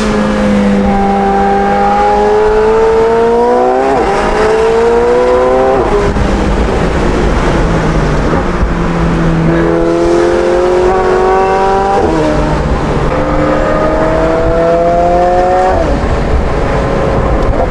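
McLaren 720S twin-turbo V8 with catless free-flow downpipes and a non-valved titanium double X-pipe exhaust, heard from inside the cabin under hard acceleration. The high-pitched note climbs through each gear and drops sharply at each of four upshifts.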